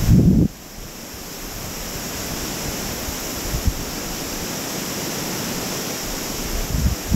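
Steady rush of a glacial river running under the bridge, with wind buffeting the microphone at the very start and again near the end, and a single light tap a few seconds in.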